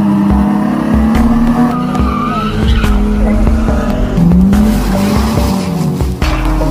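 BMW E36 325i's straight-six engine revving, its pitch rising and falling, as the rear tyres squeal and skid through a smoky burnout. Background music with a thumping low beat runs underneath.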